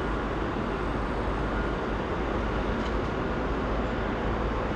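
Steady low rumble of road traffic noise, even throughout with no distinct events.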